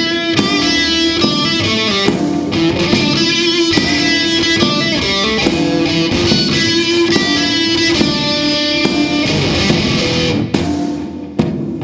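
Blues guitar music: plucked guitar notes and strummed chords, dipping briefly near the end.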